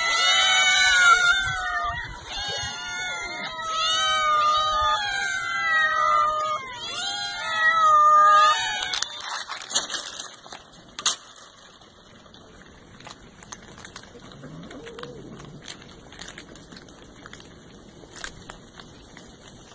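A crowd of hungry cats meowing over one another, many rising and falling calls at once. About nine seconds in they stop, and quieter crunching and ticking follows as the cats eat dry food scattered on a wooden deck.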